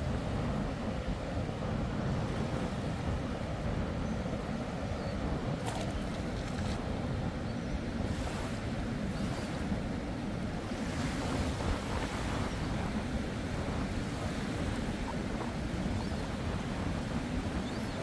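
Ocean surf washing onto the beach in a steady rush, with wind buffeting the microphone.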